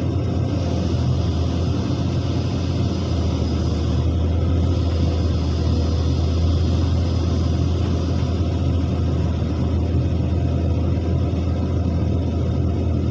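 Heavy diesel construction machinery running steadily with a low rumble.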